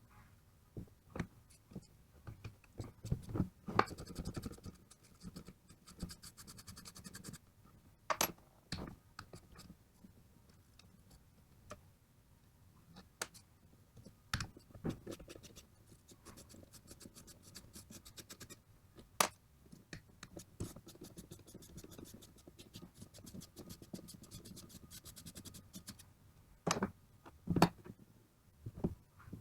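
Hand tools and metal parts clicking and knocking during the dismantling of a car alternator. There are two stretches of rapid, even clicking, a longer one in the middle, and a few louder knocks near the end.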